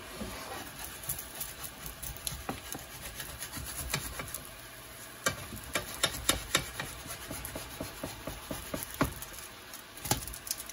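Vegan mock duck frying in oil in a pan on low heat: a quiet sizzle under irregular clicks and taps of a utensil against the pan, busiest around the middle.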